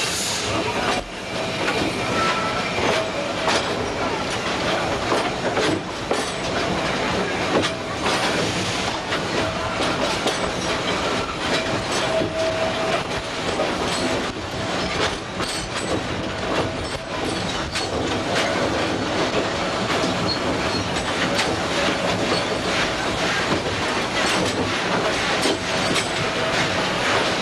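Steam train running on the rails: a steady rumble with many quick wheel clicks and a faint squeal of the wheels.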